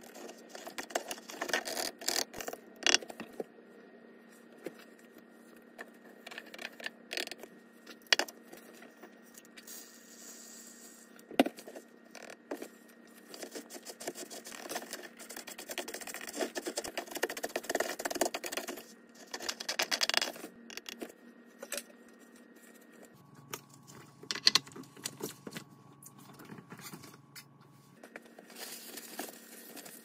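Coarse dishwasher salt granules being scraped and poked through a plastic funnel into a dishwasher's salt reservoir with a utensil: gritty scraping with irregular sharp clicks and taps.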